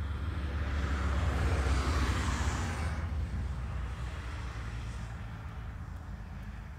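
Motorcycle passing along the street, loudest about two seconds in and then fading as it rides away, over a steady low rumble.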